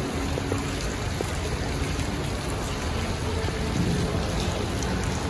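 An indoor fountain's small water jets splashing steadily into its pool.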